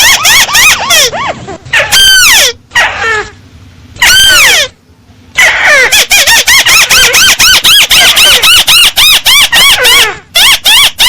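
A paddy-field crake's call played loud as a lure recording: rapid runs of short, arched, down-slurred notes, about five a second. The runs are broken about a third of the way in by two longer sweeping notes and short pauses.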